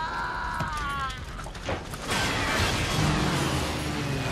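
War-film battle sound effects: a falling whine in the first second, a couple of crashes around the middle, then a warplane's low engine drone near the end.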